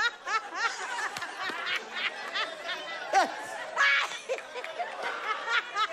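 An elderly woman laughing uncontrollably in repeated high-pitched giggles, with other people laughing along.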